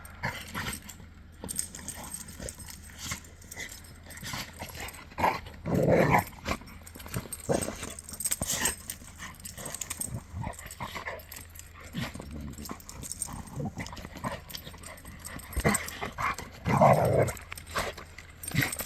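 Dogs play-fighting: constant scuffling and clicking, with two short louder dog vocalizations, one about six seconds in and one near the end.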